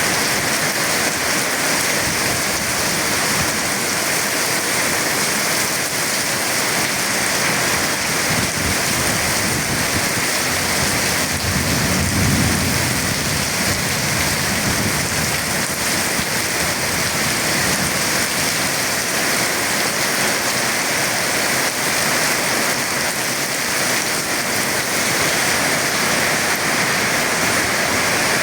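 Heavy rain falling steadily during a thunderstorm, with a low rumble, fitting distant thunder, about twelve seconds in.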